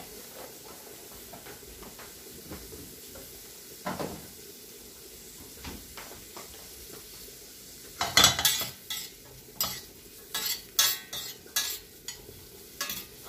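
Sliced onions sizzling in butter in a stainless steel frying pan, with a single knock about four seconds in. From about eight seconds in, a utensil clacks and scrapes rapidly against the pan as the onions are stirred.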